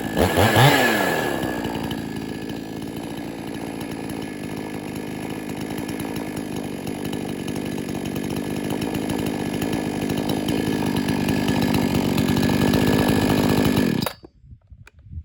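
XtremePowerUS two-stroke gas chainsaw revved once, then idling steadily until the engine shuts off abruptly near the end.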